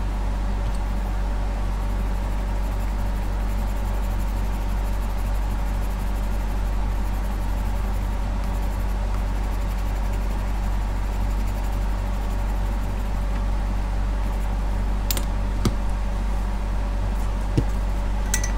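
A steady low hum, with a few light clicks in the last few seconds.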